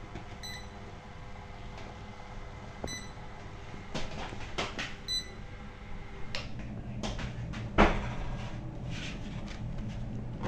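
Belt conveyor of an online thermal inkjet coding line running with a steady low hum, with three short high beeps about two seconds apart in the first half. From about four seconds in, printed cardboard cartons rustle and knock as they come off the belt, the loudest knock about eight seconds in.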